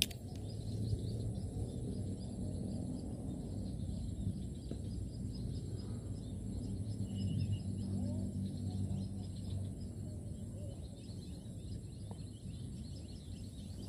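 Steady low outdoor rumble with faint, scattered high bird chirps, after a single sharp click at the start.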